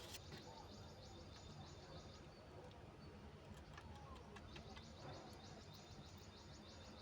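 Budgerigars chattering faintly in rapid, high, buzzy warbles, in two spells: about the first two seconds, and again near the end. Light clicks come in between.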